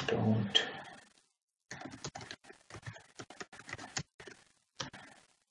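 Typing on a computer keyboard: quick runs of sharp keystroke clicks with short pauses between them, stopping just before the end.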